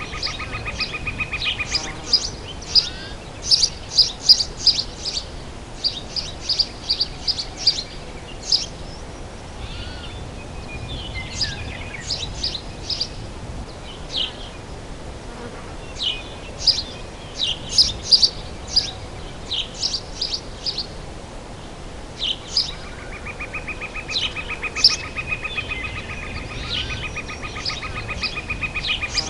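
Summer forest ambience: many birds chirping in quick, short high calls, with a steady, finely pulsing insect buzz during the first couple of seconds that returns about three-quarters of the way through.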